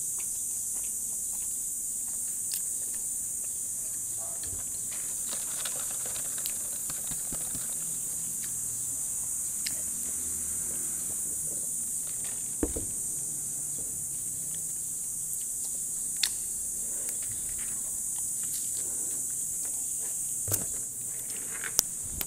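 Steady high-pitched hiss, with a few light clicks and taps as a paper drink cup and straw are handled and sipped from.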